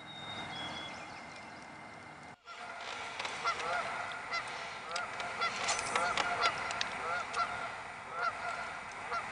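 Geese honking repeatedly across the water, a call or two each second, starting about two and a half seconds in.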